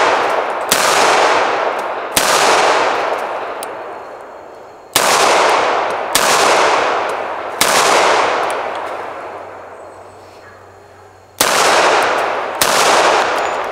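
Roberts Defense 1911 pistol firing single shots, about eight in three groups at an uneven pace, each shot trailed by a long echo that fades over a second or more.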